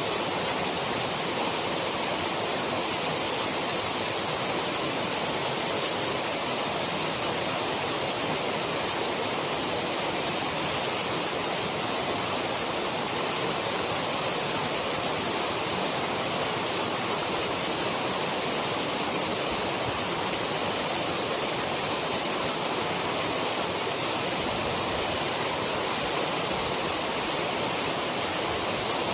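Waterfall: a loud, steady rush of falling water that does not change.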